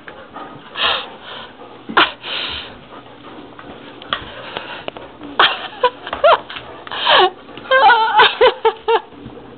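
A person laughing in breathy, wheezing bursts, breaking into quick pitched giggles near the end.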